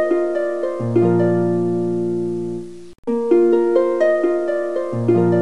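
Background music of plucked strings, harp-like: quick runs of short notes over a held low bass note, the same short phrase looping, with a brief break about three seconds in before it starts again.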